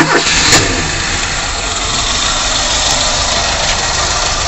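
Ford Escort Mk3 1.6 four-cylinder engine on twin Weber DCNF 40 carburettors, just fired up. It settles within the first half-second into a steady idle.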